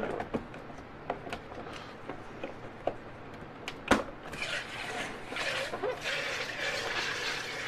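Plastic clicks and knocks as a bottle is fitted into a home soda carbonator, with one sharp knock about four seconds in, then a soft rustle over the last few seconds.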